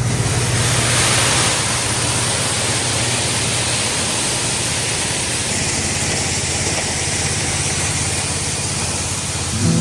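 Vintage SuperB grain dryer started on its drying cycle, running with a loud, steady rush of air over a low steady hum. Music comes in near the end.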